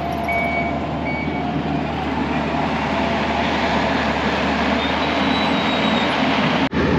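Skid steer running as it pushes dirt with its bucket. Its backup alarm beeps twice in the first second and a half and then stops, leaving the steady engine noise. The sound breaks off sharply near the end.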